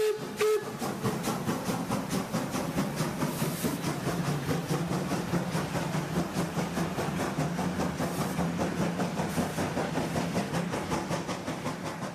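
Garden-scale model steam locomotive: a steam whistle cuts off about half a second in, then the engine chuffs steadily at about five beats a second over a hiss of steam.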